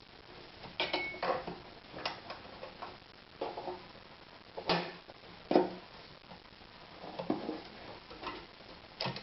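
Irregular small metallic clicks and taps from hands working at the bobbin area of an Anker Phoenix Excelsior ZZ 151 sewing machine, fitting the bobbin and its case, with a brief metallic ring about a second in; the machine is not running.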